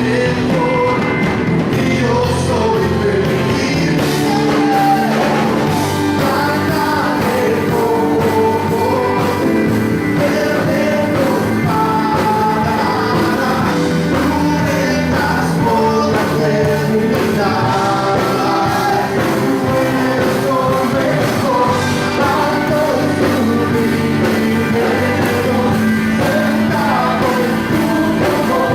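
Worship music: a sung melody over a steady band accompaniment.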